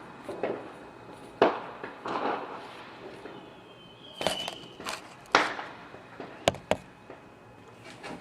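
Fireworks going off: irregular bangs and sharp cracks, each trailing off in a short echo, with two sharp cracks close together about six and a half seconds in. A brief high whistle sounds about four seconds in.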